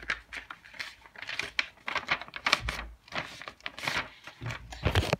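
Sheet of paper rustling and crinkling as it is handled and folded into an origami envelope fold, in a quick irregular run of crisp strokes, with a thump near the end.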